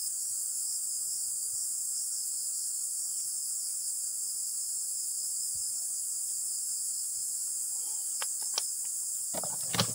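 Steady, high-pitched shrill of an insect chorus from the surrounding scrub, unbroken throughout. A few short clicks and a brief louder knock come near the end.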